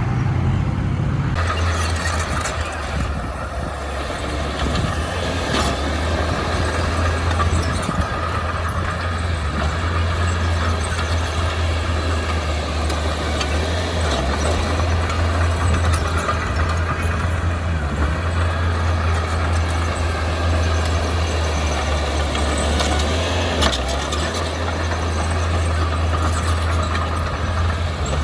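Heavy diesel machinery engine running steadily with a deep, even drone, its mechanical noise growing louder about a second in.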